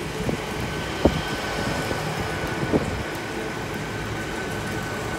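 GWR Class 802 bi-mode train running slowly into the platform: a steady hum with a thin high whine, and a few short sharp knocks.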